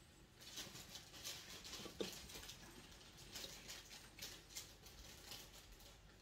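Faint, irregular rustling and light clicking, with one sharper knock about two seconds in.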